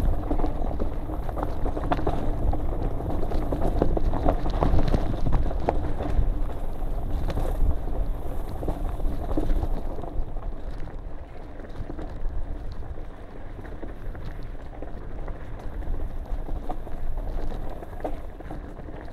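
A mountain bike descending a rocky dirt trail, heard from a camera riding with it: wind rumbling on the microphone, tyres crunching over gravel, and frequent rattles and knocks from the bike over rough ground. It gets noticeably quieter about ten seconds in.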